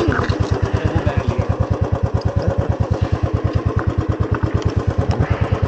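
Royal Enfield Classic 350's single-cylinder engine idling with a steady, even thump.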